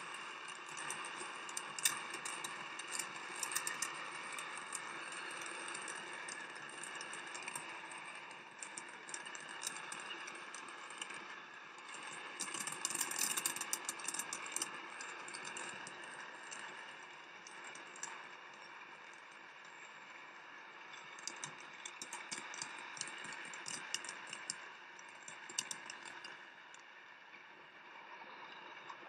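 Stockpiled fireworks going off en masse in the distance: a dense crackle of many small pops and bangs that thickens near the start, around the middle and again later on. Under it runs a steady hum of car cabin and road noise.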